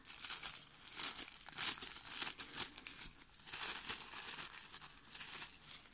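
Thin plastic air-cushion packaging film crinkling and rustling in the hands as it is cut with scissors and pulled apart, an irregular run of crackles.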